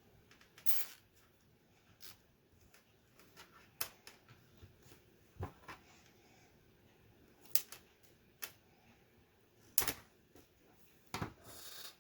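Irregular sharp clicks and taps of small plastic keyboard parts being handled and set in place during Commodore 64 keyboard reassembly, with a brief rustle near the end.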